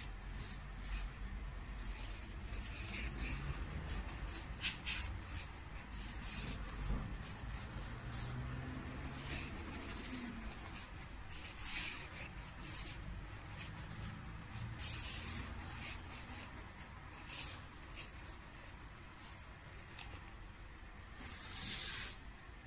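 A swan feather dragged across Wenzhou unbleached paper in ink strokes: an irregular run of short, scratchy brushing sounds, with a longer sweep near the end.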